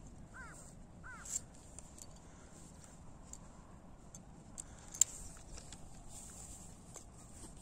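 Two short crow caws about half a second and a second in. Under them are light rustling steps through dry rice stubble and a few sharp clicks, the loudest about five seconds in.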